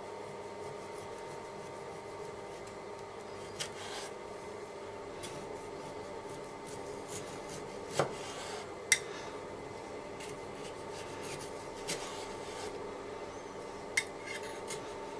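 Chef's knife sawing through a tomato on a bamboo cutting board, with a few sharp taps as the blade meets the board.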